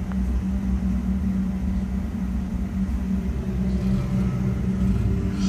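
Sundown Audio SA-12 subwoofers in a car's wall enclosure playing deep bass at high volume, heard from inside the car: a heavy, steady low-end drone with little else above it.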